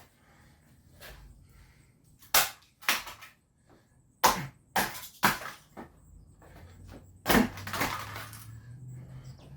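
A camcorder being slammed against the garage floor: about six loud, sharp smashing impacts, some in quick succession, the last and heaviest about seven seconds in.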